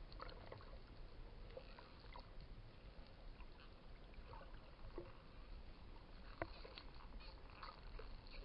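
Dolphins heard underwater: faint short chirps, squeaks and clicks scattered over a steady low rumble of water noise, with one sharp click about six and a half seconds in the loudest.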